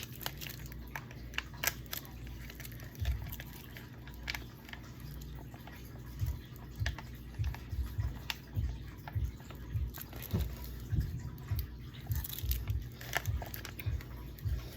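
Someone drinking from a Kool-Aid Jammers juice pouch. Light crinkling and clicks of the plastic pouch and straw run throughout, and in the second half there is an irregular run of soft low gulps as the juice is swallowed.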